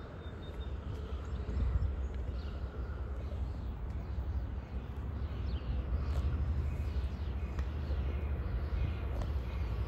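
Birds chirping now and then over a steady low rumble.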